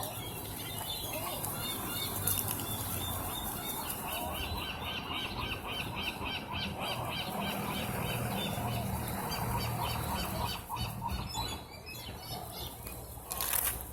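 Gulls calling while being fed: squealing cries with a fast run of short repeated calls, about three a second, from about four to ten seconds in. A low hum runs underneath.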